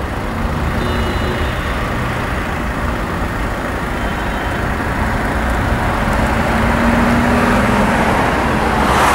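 Boeing 737-300's twin CFM56-3 turbofan engines at takeoff thrust: a steady jet roar with a deep rumble. It grows louder as the airliner finishes its takeoff roll and climbs away, loudest near the end.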